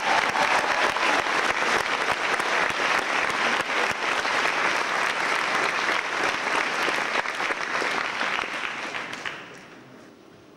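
An audience applauding, a dense patter of many hands clapping that fades away near the end.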